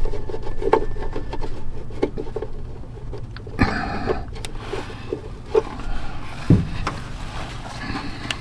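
Metal hardware being handled against a truck frame: clicks and knocks as a bolt and nut are worked into the frame holes. There is a scraping, rubbing stretch about halfway through and a sharper knock a little later.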